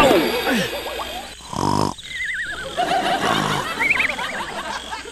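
Cartoon sound effects: a couple of quick falling whistles at the start, then a comic snore played twice, each a rasping buzzy inhale followed by a wavy, warbling whistle.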